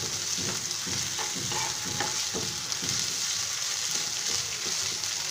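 Sliced onion, green chilies and ginger-garlic paste sizzling in oil in a frying pan, with a steady hiss. A plastic spatula stirs them, its strokes scraping the pan now and then, more often in the first half.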